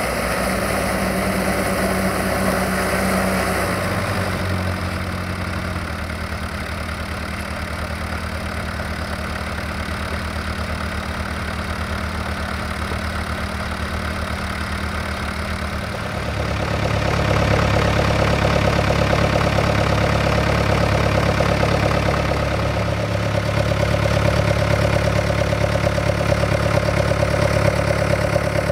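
Diesel engine running steadily. Its note shifts about four seconds in, and from about sixteen seconds on it runs noticeably louder.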